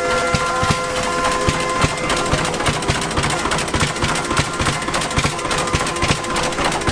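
An antique engine running, its exhaust firing in rapid, uneven knocks. A steady pitched tone sounds with it and fades out about two seconds in.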